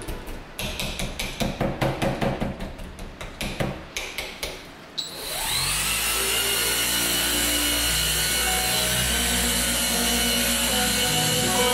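A quick run of short ticks, then about five seconds in a machine polisher spins up with a rising whine and runs steadily on the car's paint.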